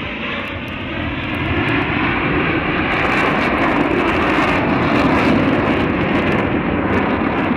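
Jet roar of U.S. Navy F/A-18 Hornets flying overhead in formation, a continuous rushing roar that grows louder over the first few seconds.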